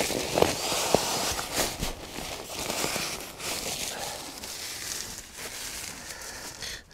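Nylon fabric of an inflatable sleeping mat rustling and crinkling as it is handled, with scattered small clicks and knocks.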